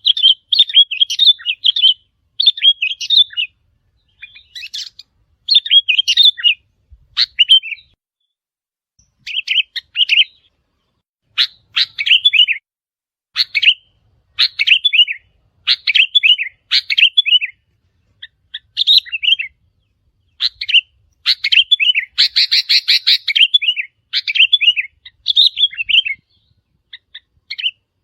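Sooty-headed bulbul song: short, bubbly whistled phrases repeated about once a second with brief pauses, and a denser run of notes a little after the middle.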